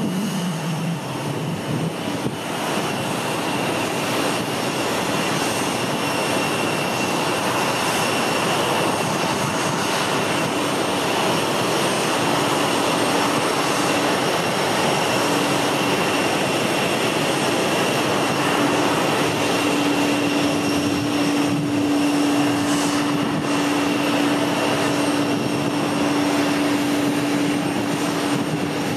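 Jet airliner engines running: a steady, even rushing noise with a faint high whine, and a low steady hum that grows stronger from about halfway through.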